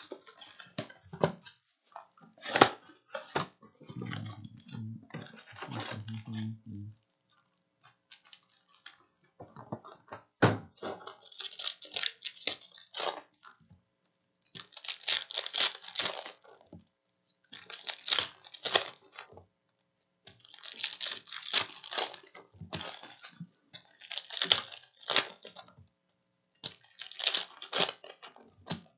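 Plastic wrap crinkling and packaging clicking as a Select basketball hobby box is unwrapped and opened, then foil trading-card packs torn open one after another. Each tear is a crinkly burst of a second or two, coming about every three seconds.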